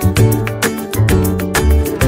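Background music with a steady quick beat and a bass line.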